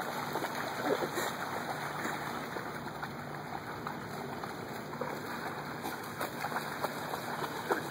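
A person's feet and a dog's legs splashing and sloshing through shallow flood water, an irregular patter of small splashes.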